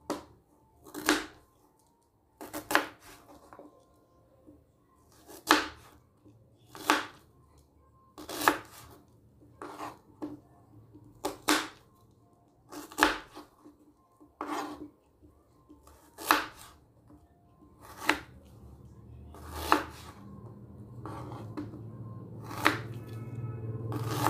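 A kitchen knife chopping onion on a cutting board: single, separate knocks, about one every second and a half.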